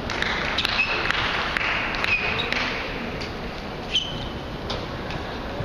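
Scattered, irregular clicks of table tennis balls bouncing and being struck, ringing in a large sports hall, with a few short high squeaks.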